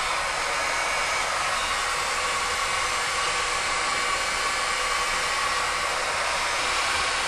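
Handheld heat gun running steadily, an even rush of blown air with a faint motor whine, as it heats heat-shrink crimp connectors on 12-volt wiring to shrink them.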